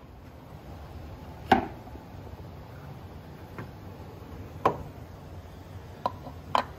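About five sharp knocks and clicks as parts and tools are handled, the loudest about a second and a half in and a close pair near the end, over a low, steady hum.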